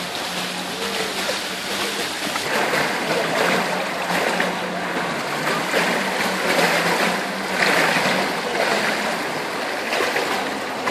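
Steady rush of pool water lapping at the tiled edge, with splashing and pouring as a small plastic bucket is dipped in and emptied. A low steady hum runs underneath for most of it.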